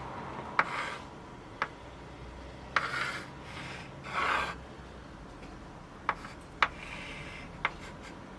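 Hands working with tools and wood: several light knocks and a few short scraping, rubbing strokes.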